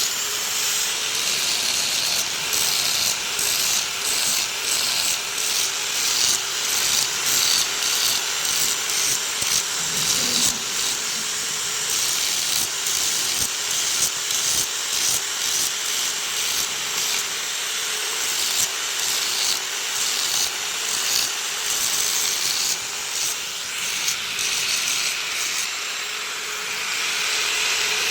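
Continuous rasping, hissing metalworking noise from work on a crown pinion gear's teeth, with a faint steady hum underneath.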